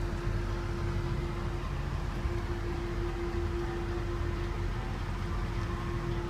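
Steady low mechanical hum and rumble with one constant droning tone.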